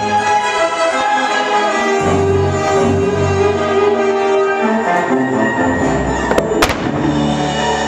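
Orchestral show music with strings, playing loudly, with two sharp firework bangs close together about six and a half seconds in.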